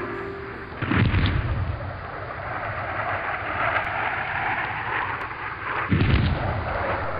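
Two explosion sound effects, one about a second in and one near the end, each a sudden boom that dies away, with a steady noisy wash between them.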